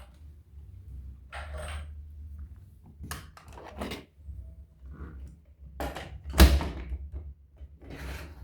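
Knocks, clatters and rustles of objects being handled and set down, with one louder thump about six and a half seconds in.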